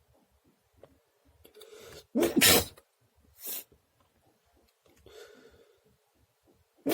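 A person sneezing: a breathy intake leads into one loud sneeze about two seconds in, followed by a shorter, higher burst, and another sneeze starts right at the end.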